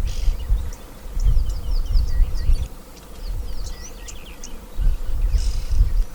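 Birds giving many short, quick chirps that sweep in pitch, over an uneven low rumble.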